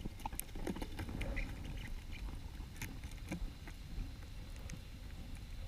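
Underwater sound picked up by a diver's camera: a steady low rumble with scattered small clicks and ticks.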